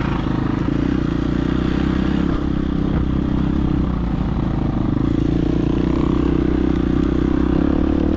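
Dirt bike engine running at a fairly steady throttle, its note easing briefly about four seconds in and then picking up again.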